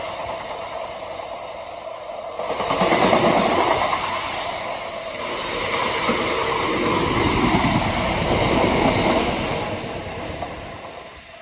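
Freight train's box wagons rolling past, their steel wheels clattering on the rails. The noise swells about two and a half seconds in, stays loud, then fades near the end as the wagons draw away.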